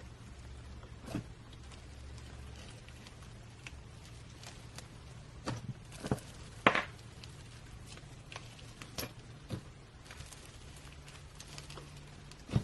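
Slime being handled up close: scattered small sticky clicks and pops, a few louder ones around the middle, over a low steady hum.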